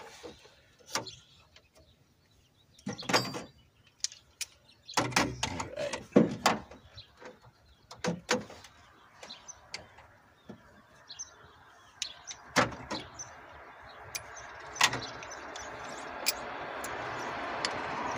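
Scattered metallic clicks and knocks of hand tools and parts being handled during engine work, with a steady hiss that grows gradually louder through the second half.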